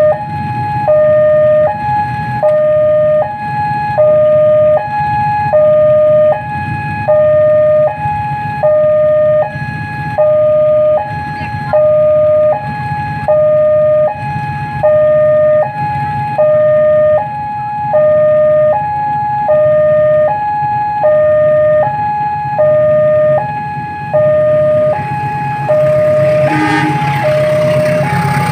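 Railway level-crossing warning alarm sounding its two-tone electronic signal, alternating between a higher and a lower tone about once a second, warning that a train is approaching. Near the end the rumble of the arriving diesel-hauled train rises beneath it.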